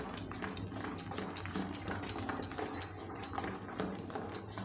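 A hand beats thick soaked-and-ground urad, moong and chana dal batter in a steel bowl, with rhythmic wet slaps and scrapes at about four strokes a second. This is the beating that whips air into the batter so the bhallas come out soft and spongy.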